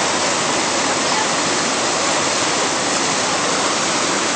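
Fast, muddy floodwater rushing and churning through a rocky river channel, a steady loud roar that doesn't let up.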